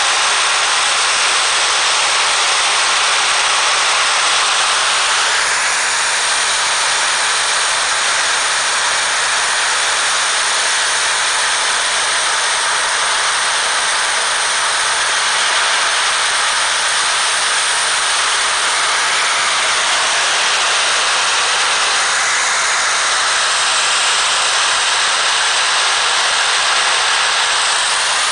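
A giant string of firecrackers going off all at once, so many reports at a time that they merge into one loud, steady hiss.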